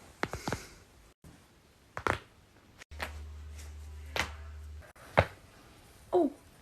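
Neck joints cracking during chiropractic adjustments: about five short, sharp pops spread apart, two close together at the start and single ones about two, four and five seconds in. Near the end comes a brief falling vocal sound.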